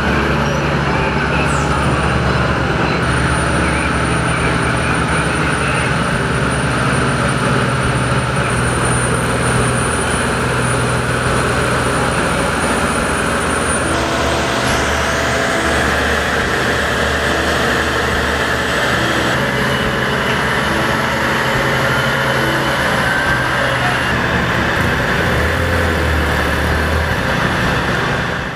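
Heavy-haul prime mover trucks running steadily on the road, with engine drone and traffic noise.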